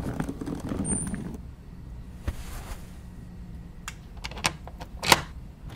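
Background music fading out in the first second or so, then a few sharp clicks and knocks near the end, the loudest about five seconds in: a door's bolt and latch being worked to open it.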